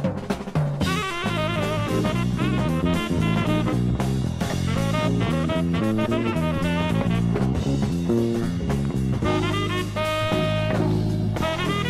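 Jazz band playing: a drum fill ends about a second in, then saxophone and brass come in over bass and drums, holding long notes near the end.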